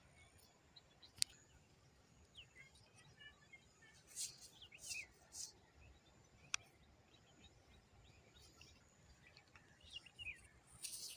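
Faint bird chirps, short falling calls heard several times, over a low outdoor hush. Two sharp clicks and a few brief rustles come from stones and gravel being handled.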